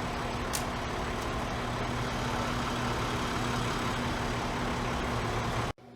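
A large vehicle's engine running steadily, with a constant low hum over outdoor street noise, cutting off abruptly near the end.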